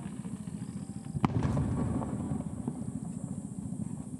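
A single firework shell bursting with a sharp bang about a second in, its report trailing off. Under it, a steady low rumble.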